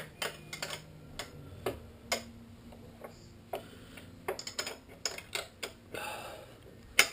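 A hand wrench turning a bolt a little at a time: irregular metallic clicks and clinks, roughly two a second, with a short scrape of metal near the end.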